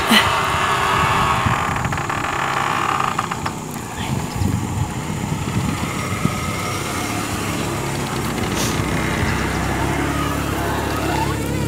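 A small pickup truck's engine idling steadily.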